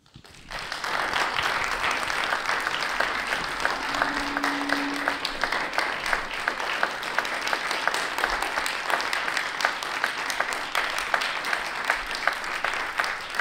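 An audience applauding: many hands clapping together, swelling within the first second and then holding steady.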